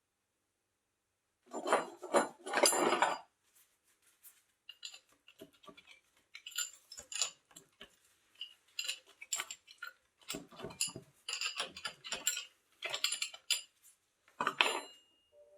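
Steel gearbox parts clattering and clinking as they are handled and set down, in irregular bursts of metal-on-metal knocks after a short silence.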